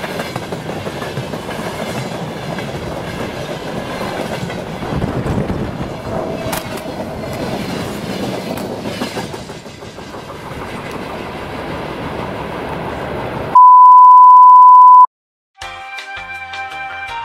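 Freight train wagons rolling past on the rails with steady wheel clatter. About thirteen seconds in, it cuts to a very loud steady beep of one pitch lasting about a second and a half, the 'technical difficulties' tone, followed by a brief gap and then music.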